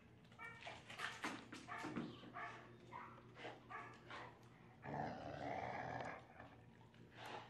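A dog growling and grumbling in play while tugging and carrying a rubber toy: a run of short calls, then a longer, louder growl about five seconds in.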